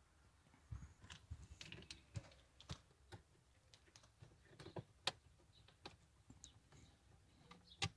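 Faint, irregular clicks and taps of hands working the plastic instrument cluster housing and dashboard trim of a Renault 9, with a sharper click about five seconds in and another near the end.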